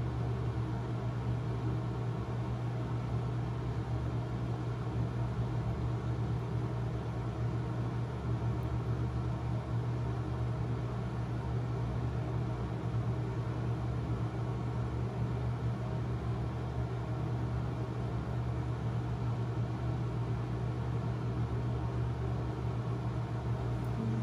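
A steady low mechanical hum with an even hiss, unchanging throughout.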